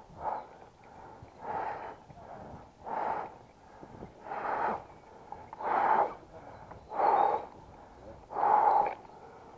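A person breathing hard and close to the microphone, with one heavy rasping breath about every second and a half, each breath louder than the last, as from exertion while moving fast on foot.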